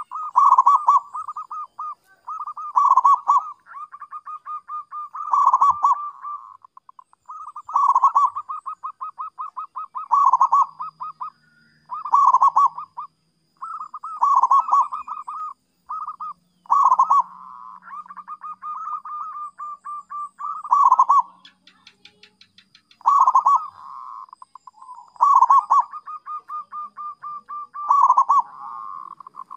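Zebra dove singing its song over and over: each phrase a rapid run of short, stuttering coos around one pitch with a louder burst, repeating about every two and a half seconds.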